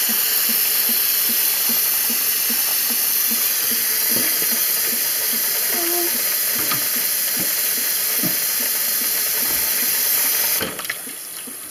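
Kitchen tap water running in a steady stream into a stainless steel bowl of soaked navy beans, filling it with fresh soaking water. The flow stops abruptly about ten and a half seconds in when the tap is shut off.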